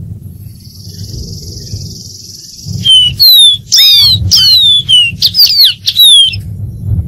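Dark-throated seedeater singing: a loud burst of clear whistled notes, each sliding down in pitch, lasting about three and a half seconds from near the middle. Before the song a steady high hiss, and a low rumble underneath throughout.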